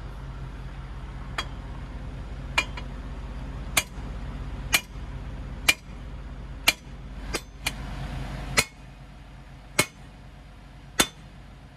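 Sledgehammer blows on steel, driving the master pin into an excavator's track chain: about eleven sharp strikes roughly a second apart, over a steady low engine hum.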